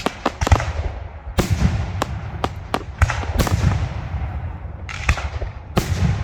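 Fireworks display: aerial shells bursting one after another in sharp bangs at irregular intervals, with a low rumble lingering between them.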